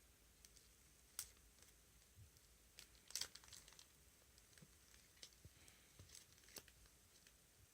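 Near silence with a few faint, scattered clicks and a brief crinkling rustle about three seconds in.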